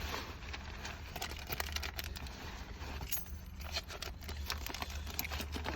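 Keys and a key fob being handled: scattered small jangles and clicks over a steady low hum.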